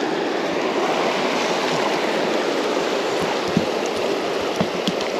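Creek water rushing steadily, with a few faint ticks near the end.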